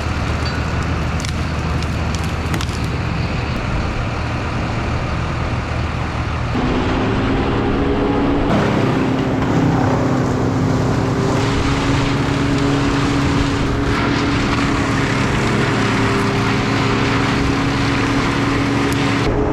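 Heavy engines running steadily. About six and a half seconds in, a higher-pitched, steady engine note joins in and holds.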